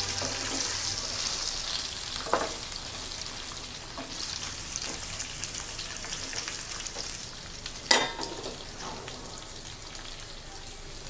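Pumpkin pieces sizzling in hot oil in a frying pan as a wooden spatula stirs them, with two sharp knocks of the spatula on the pan, the louder one about eight seconds in.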